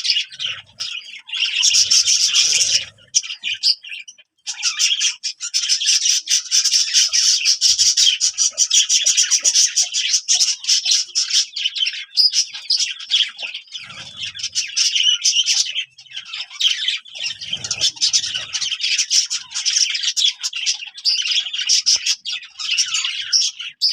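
Many small birds chirping and chattering together in a dense, rapid, high-pitched twitter with brief squawks, almost without a break.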